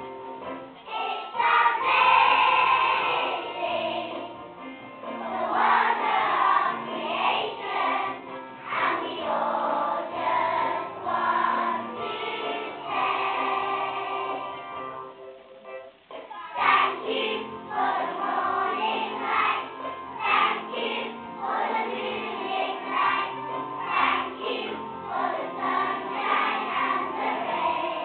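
Children's choir singing a song together, with a brief break in the singing a little past the middle.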